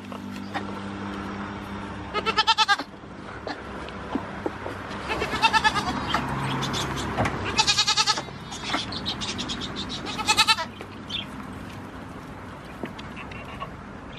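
Goat kids bleating: four short, wavering bleats spaced a few seconds apart.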